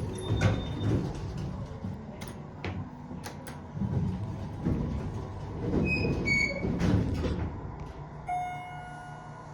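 Department store elevator running: a low rumble with clicks and knocks from the car and doors, and a few short high tones about six seconds in. A steady tone starts about eight seconds in.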